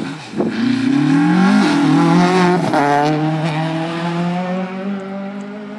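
Ford Escort Mark II rally car accelerating hard away, its engine note climbing and dropping at two upshifts about one and a half and two and a half seconds in. The engine then holds a steady note that slowly fades as the car pulls away.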